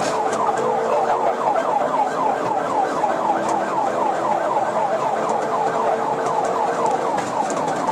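Police car siren wailing in a fast yelp, a rapid run of falling pitch sweeps about four times a second.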